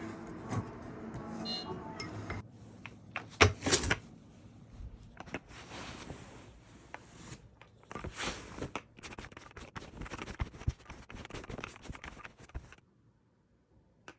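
Handling sounds: scattered clicks, rustling and scraping, with a sharper knock-like pair about three and a half seconds in, cutting off abruptly near the end.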